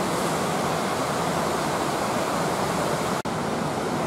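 Steady rushing and splashing of water flowing through concrete hatchery rearing tanks, with a momentary break about three seconds in.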